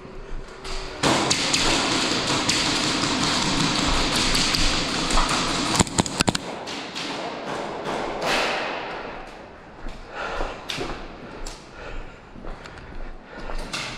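Airsoft play: about five seconds of dense, loud noise, then a quick cluster of sharp clicks and scattered taps and thuds, typical of airsoft guns firing and BBs striking.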